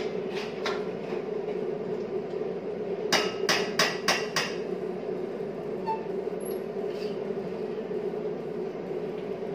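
A cooking spoon tapped about five times in quick succession against the rim of a stainless-steel pot of rice and water, about three seconds in, over a steady low kitchen hum.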